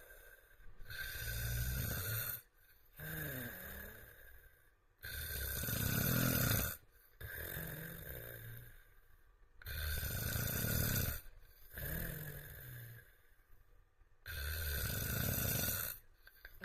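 Adult man snoring in sleep: four loud snores about four to five seconds apart, each followed by a quieter breath.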